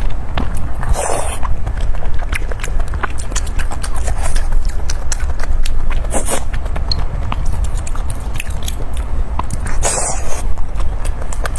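Close-miked chewing with many quick wet mouth clicks, and three brief louder noisy swishes: about a second in, around the middle and near the end. A steady low rumble runs underneath.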